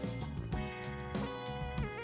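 Background music led by guitar, with strummed and plucked notes over a steady beat.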